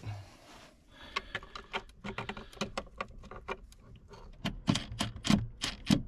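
Irregular clicks and knocks from hands working a plastic weatherproof outlet box and its hinged cover while a GFCI receptacle is fitted into it. The knocks get louder for the last second and a half or so.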